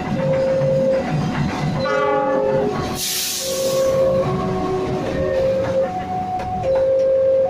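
Train running past with a low rumble, a repeating two-pitch warning tone sounding in notes just under a second long, and a short sharp hiss of air about three seconds in.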